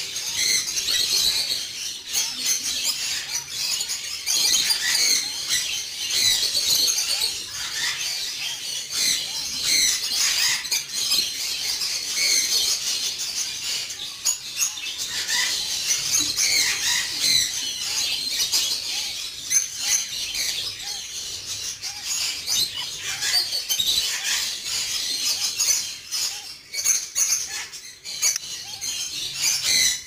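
African grey parrot chick giving rapid, high-pitched begging chirps without pause while the adult feeds it.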